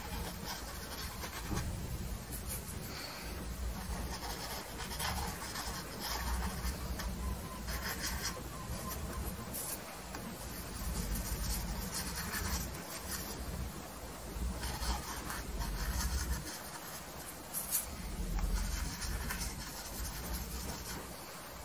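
Paintbrush bristles rubbing oil paint onto textured canvas in short, irregular strokes, with a low rumble underneath.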